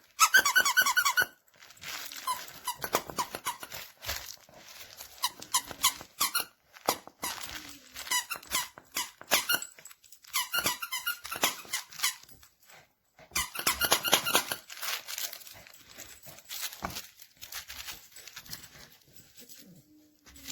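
A dog chewing a squeaky plush toy, the squeaker squeaking over and over in rapid runs with short pauses between them, loudest at the very start and again in the middle.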